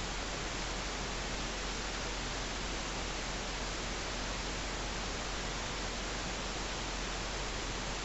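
Steady hiss with a low hum underneath and no distinct events: background noise of the room and recording, with nothing else heard.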